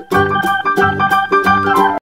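Background music: a bright electronic keyboard melody over a steady beat.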